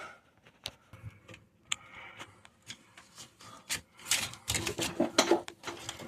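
Irregular clicks, taps and scraping as a rubber Mission coupling with steel band clamps is worked onto a drain pipe by hand, busiest about four seconds in.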